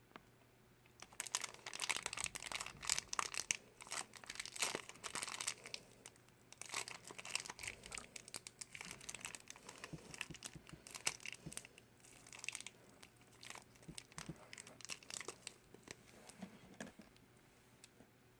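A Shopkins blind-bag wrapper being crinkled and torn open by hand. A dense run of crackling starts about a second in and goes on for several seconds, then thins into scattered crinkles as the package is worked open.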